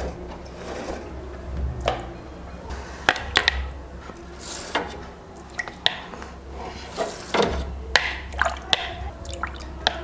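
Wet toothbrush scrubbing top to bottom over the thin aluminium fins of a split AC's indoor evaporator coil, dipped in a cup of water: irregular short strokes and clicks with some dripping and splashing.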